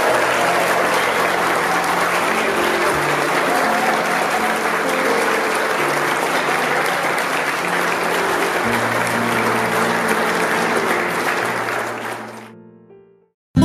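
Crowd applauding steadily over music with long held chords; both fade out near the end.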